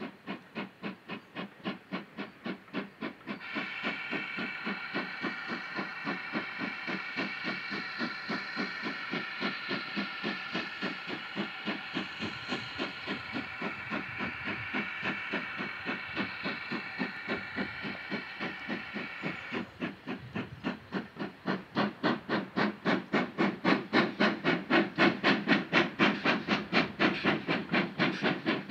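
GWR Manor class 4-6-0 steam locomotive hauling a passenger train, its exhaust beating evenly at about three to four beats a second. A long steady high tone of several pitches sounds over the beats from about three seconds in until about twenty seconds in, and the beats grow louder near the end.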